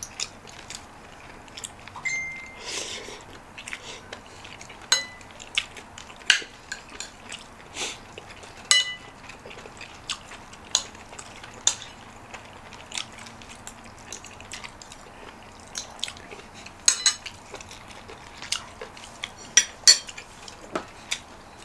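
Metal spoon and fork clinking against a bowl and plate while eating, in irregular, sharp clinks, a few of them ringing briefly.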